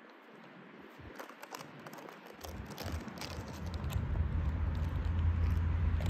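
Cane Corso crunching and chewing on a small hard object, with scattered sharp clicks and crackles. From about halfway in, a steady low rumble rises and grows louder beneath it.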